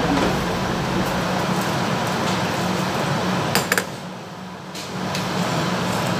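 Steady whir of a commercial kitchen exhaust hood fan with a low hum, dipping briefly about four seconds in; a couple of sharp clicks just before the dip.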